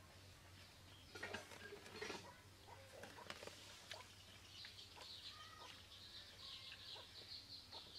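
Faint scraping and crumbling of wet soil as a hand digs into a mud hole, with a few sharper scrapes in the first half. From about halfway, a faint rapid high-pitched chirping runs over it.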